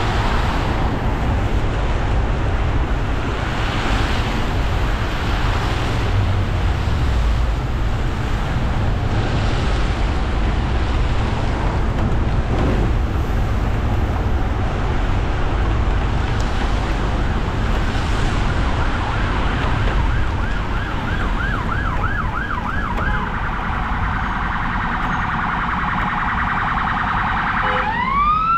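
Steady hiss of rain and tyres on a wet road. About two-thirds of the way in an emergency vehicle's siren starts with a fast yelp, settles into a quicker warble, and begins a rising wail at the very end.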